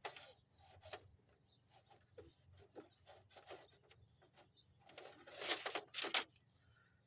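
Hands rubbing and scraping while fishing a wire through a tight opening, in scattered short scrapes and clicks, loudest in a stretch of scraping about five to six seconds in.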